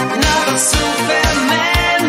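Italo disco dance music with a steady kick drum beat, two beats a second.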